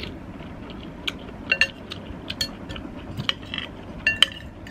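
Cutlery clinking against a bowl several times, with soft clicks between; two of the strikes ring out briefly, about a second and a half in and again near the end.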